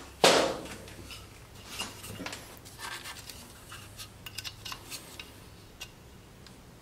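Plastic clicks and rubbing as a glow plug controller and its wiring harness connector are handled. A sharp click comes about a quarter second in, followed by scattered lighter ticks.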